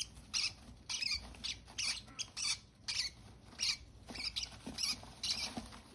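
Unweaned parrot chicks squeaking: short, high-pitched cheeps about two or three a second, the food-begging calls of chicks being hand-fed formula from a spoon.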